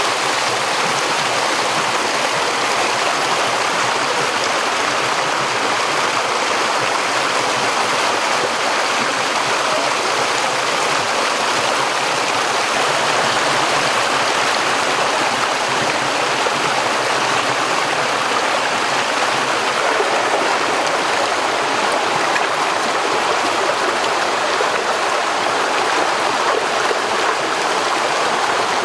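Shallow stream running over rocks in small cascades, a steady, unbroken rush of water.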